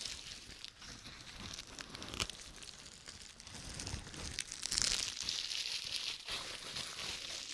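Plastic bubble wrap being handled and crinkled, a steady crackly rustle with scattered sharp ticks.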